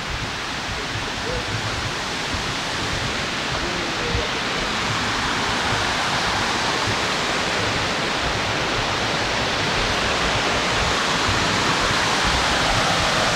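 Waterfall cascading over rocks: a steady rushing of water that grows gradually louder.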